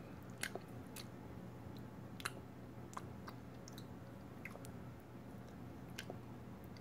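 Faint, scattered clicks and small mouth sounds of someone chewing sour candy, over a steady low hum.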